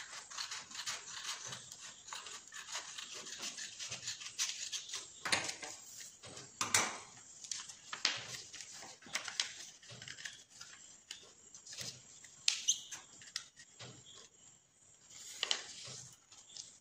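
Scissors cutting through a sheet of colour paper, then the paper rustling and crinkling as it is folded and pressed flat by hand: a run of short, irregular scrapes and crackles.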